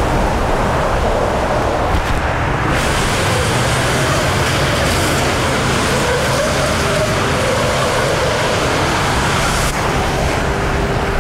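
Steady freeway traffic noise: cars driving through standing floodwater on wet pavement, tyres hissing through the water. The hiss grows stronger about three seconds in as more traffic comes through.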